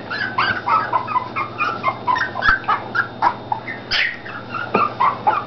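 Olde English Bulldogge puppies whining, a quick run of short high-pitched squeaks, several pups calling at once.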